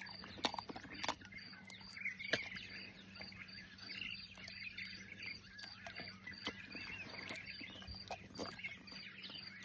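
Faint clicks and smacks of a chacma baboon chewing food, with birds twittering faintly in the background.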